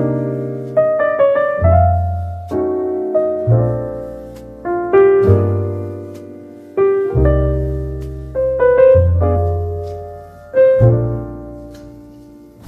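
Slow, gentle piano music: chords and single notes struck every second or two over low bass notes, each left to ring and fade.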